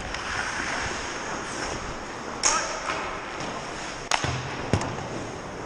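Hockey skates scraping and hissing on the ice, with sharp clacks of sticks and puck: one about halfway through, then two more close together later on.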